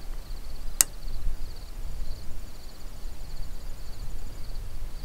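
Insects chirping in a steady, pulsing high trill over a low wind rumble, with one faint, short click about a second in.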